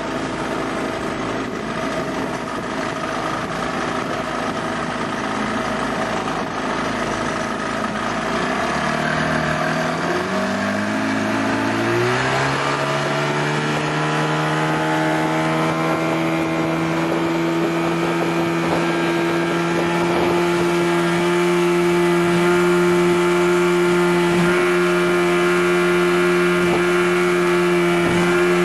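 Small motorboat engine running. About a third of the way in it revs up, its pitch rising over a few seconds, then it holds a steady, higher note as the boat runs at speed.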